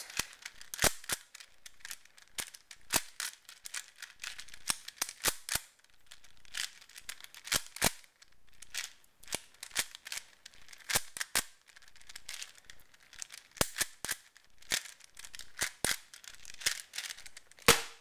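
4x4 Rubik's cube being turned fast with finger tricks through the edge-flip parity algorithm: a quick, irregular run of sharp plastic clicks and clacks as the layers snap round, with a few short pauses between move groups.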